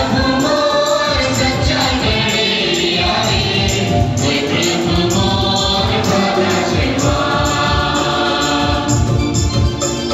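A group of voices singing a devotional song in chorus over a steady drum beat.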